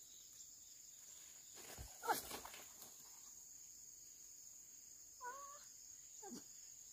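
Steady high insect drone, with three short wavering vocal calls over it: the loudest about two seconds in, then two fainter ones near five and six seconds.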